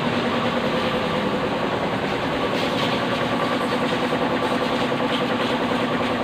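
Pressure washer running steadily, a constant mechanical hum under the hiss of a water jet spraying into a car's engine bay.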